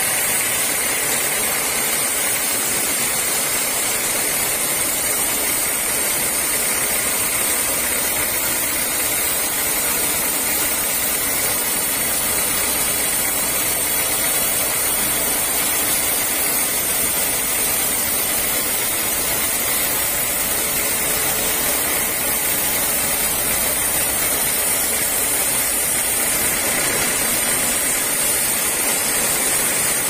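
Sawmill blade cutting lengthwise through a large teak log: a loud, steady hiss of the cut over the constant hum of the saw's drive.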